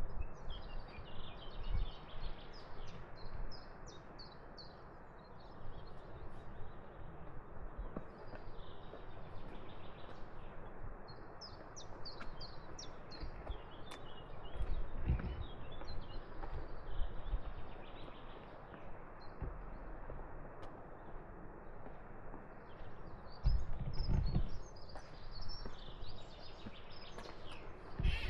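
Small birds chirping in quick repeated series over steady outdoor background noise, with a few low thumps.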